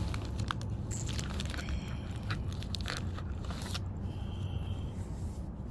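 Scattered clicks, crackles and scraping from small objects being handled, over a steady low hum, with a brief high squeak about four seconds in.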